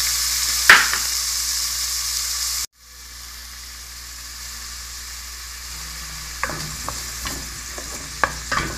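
Chopped red onion sizzling in hot oil in a stainless-steel pot, loud at first with a sharp click about a second in. The sound breaks off briefly a little under three seconds in, then the sizzling goes on quieter, with scattered knocks and clicks on the pot from stirring near the end.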